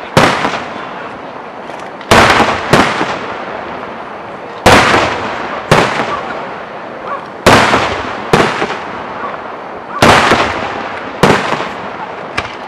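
Aerial firework shells bursting in a display: about ten loud bangs, one every second or two, each dying away slowly.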